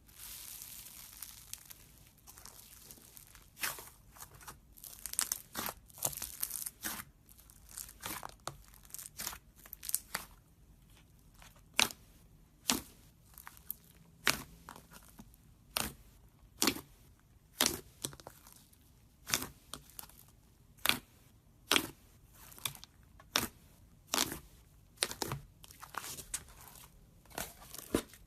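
Slime being squeezed and pressed by hand, making sharp crackling pops. A dense crackle at the start gives way to single pops, which come about once a second in the second half.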